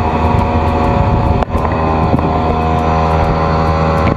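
Outboard motor of a small fishing boat running steadily at cruising speed, with hull and water rush and wind noise mixed in. The sound drops out for a moment about a second and a half in.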